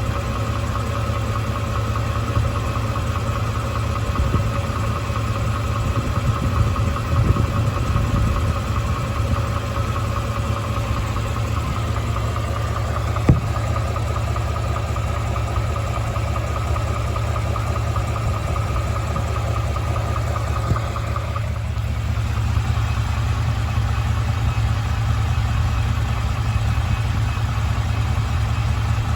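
2017 Ford F-150's 5.0-litre V8 idling steadily, with the engine knock the owner is tracking at 27,000 miles. A steady whine stops about two-thirds of the way through, and there is one sharp click about halfway.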